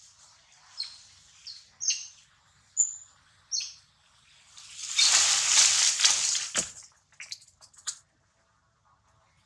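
Birds chirping: five short, high-pitched calls spread over the first four seconds. About five seconds in comes a loud noisy hiss lasting under two seconds, the loudest thing here, which ends in a sharp click and is followed by a few softer clicks.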